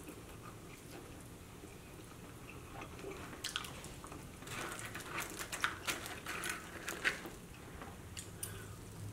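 Eating a bone-in chicken wing: bites and chewing, with a run of short crackly clicks from about three and a half to seven seconds in.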